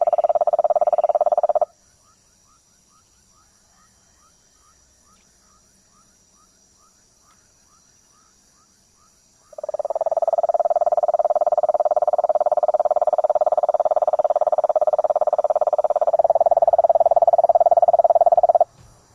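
A frog calling in a loud, steady, fast-pulsed trill that breaks off about two seconds in. For several seconds after that, only faint short chirps are heard, about three a second. The loud trill then starts again and stops abruptly just before the end.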